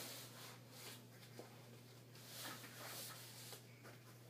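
Faint rustling and shuffling of clothes and bedding as a child does a forward roll, with a few small ticks over a steady low room hum.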